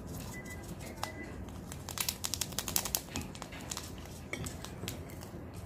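Crinkling and crackling of packaging handled by hand at the table, as a run of quick small crackles that is busiest about two to three seconds in.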